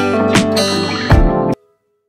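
Background music with strummed acoustic guitar and a steady beat, cutting off abruptly about one and a half seconds in, then silence.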